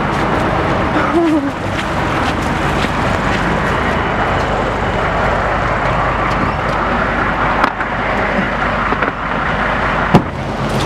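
Skateboard wheels rolling on wet asphalt, a steady rushing rumble, with stopped vehicles idling under it and a sharp knock about ten seconds in.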